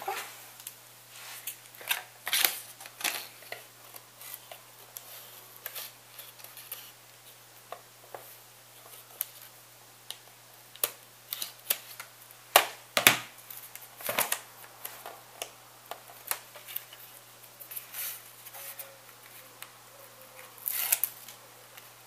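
Scattered clicks, taps and short rustles of hands working a roll of strong double-sided tape and stiff cardstock, with a few sharper, louder snaps a little past the middle, likely scissors cutting the tape.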